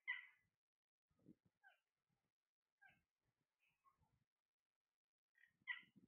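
Alexandrine parakeets giving short calls, the loudest just at the start and again near the end, with a few softer ones between.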